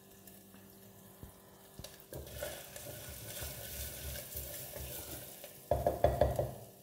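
Wooden spatula stirring ginger paste and spices sizzling in oil in an unglazed clay pot, scraping against the pot. The stirring starts about two seconds in, with louder scrapes near the end.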